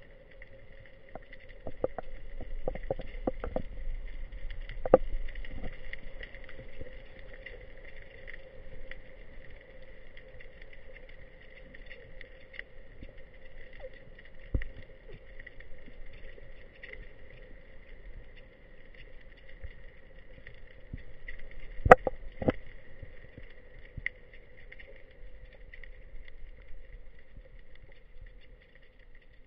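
Underwater sound picked up by a diver's camera: a steady hum with scattered clicks and knocks. A sharp knock about 22 seconds in is the loudest.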